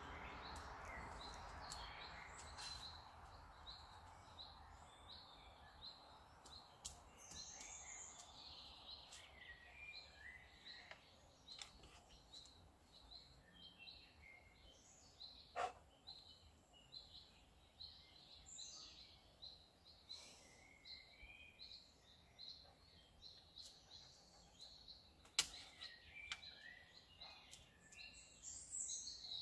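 Faint birdsong and chirping in the background, with two sharp clicks from a dog-training clicker, one about halfway through and one near the end.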